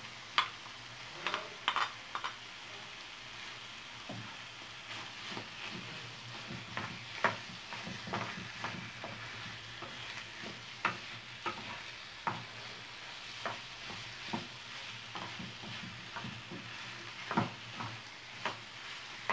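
Chicken and raw shrimp filling sizzling in a frying pan while a wooden spoon stirs it. Frequent short scrapes and taps of the spoon against the pan sound over the steady frying hiss.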